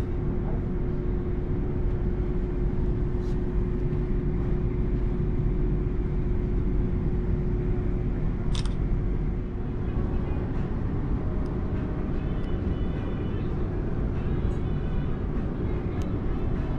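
Steady low rumble with a constant hum that fades out about halfway through, a single sharp click just past the middle, and faint voices in the background.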